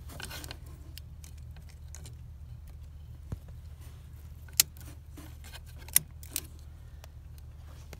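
Handling of a new floor-mounted headlight dimmer switch and its wiring plug: scattered small clicks and rattles of plastic and metal, the sharpest about four and a half and six seconds in, over a steady low hum.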